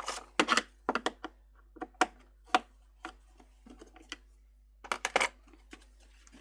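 Irregular sharp clicks and taps of hard plastic being handled, from the casing of a Revitive foot pad and the small parts and tools on the bench, with a quick cluster of several clicks about five seconds in.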